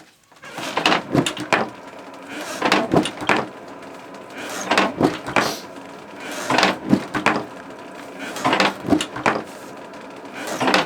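Hand-worked forge bellows being pumped: a pair of wooden knocks and creaks on each stroke, repeating about every two seconds.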